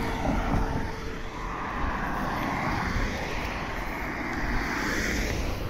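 Road traffic: a motor vehicle driving past, a steady rush of tyre and engine noise that swells and fades over several seconds.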